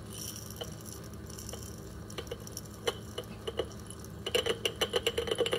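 Glass jars and loose dried herbs being handled: a light rustle, scattered clicks against glass, then a quick run of rattling clinks near the end.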